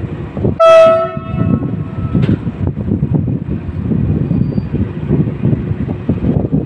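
SM42 diesel shunting locomotive sounding one short horn blast under a second in, then its diesel engine rumbling unevenly as it pulls a work train away from the station.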